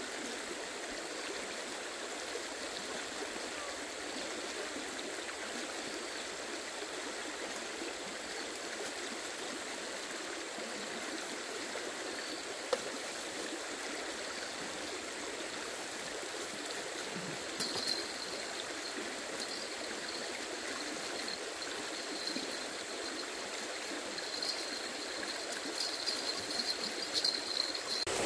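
Steady rushing of flowing water, like a stream.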